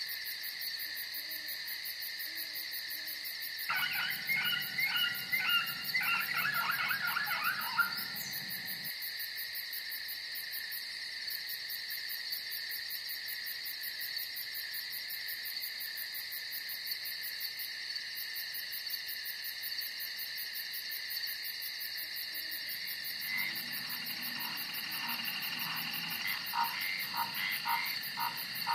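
A steady chorus of insects with fast, high pulsing trills, joined twice by bouts of frogs calling in quick repeated notes, about four seconds in and again near the end.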